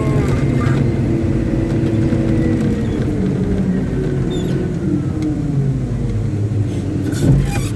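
Caterpillar 777D haul truck's diesel engine running with a steady heavy rumble, its pitch easing down a little partway through, with a brief louder burst of noise near the end.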